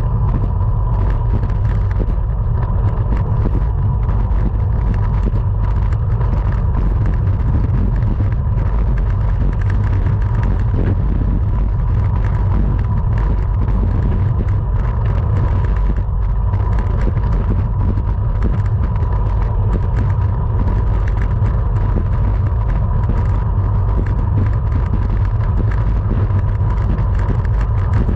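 Steady wind rumble on the microphone of a camera riding on a racing bicycle, with a thin steady tone and scattered small clicks over it.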